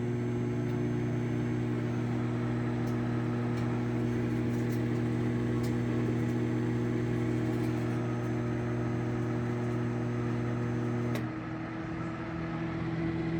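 Sharp Carousel microwave oven running on 50% power, a steady low electrical hum over the fan. About eleven seconds in a relay clicks and the deep hum drops away to a lighter, different tone: the magnetron cycling off for the low power setting while the fan keeps running.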